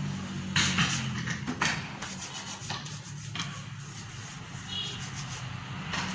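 Short, irregular bursts of rubbing and rustling as equipment is handled and set out, over a steady low hum.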